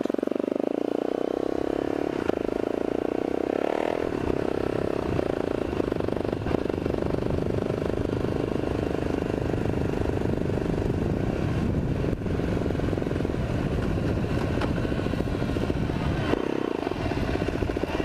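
Suzuki LTZ 400 ATV's single-cylinder four-stroke engine running while being ridden, heard through a mic inside a helmet. The sound grows deeper and rougher about four seconds in and eases briefly near the end.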